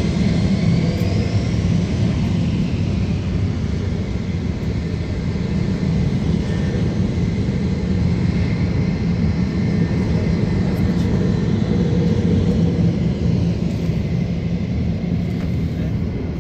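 USAF Thunderbirds F-16 jet engines running as the jets taxi: a steady rumble with a faint high whine over it.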